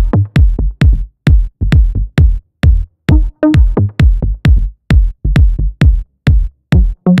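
Electronic dance music laid over the video: a hard, steady drum-machine kick about twice a second, with short pitched synth notes over a few of the beats.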